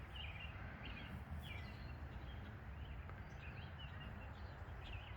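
Faint birds chirping, a scatter of short, high calls, over a steady low rumble of outdoor background noise.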